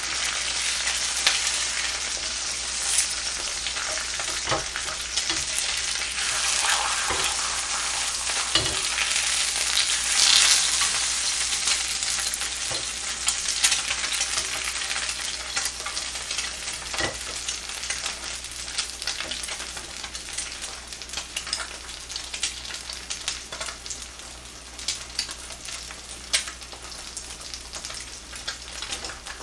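Two eggs frying in a nonstick pan, sizzling steadily, with occasional scrapes and taps of a wooden spatula as they are turned. The sizzle gradually dies down over the last part.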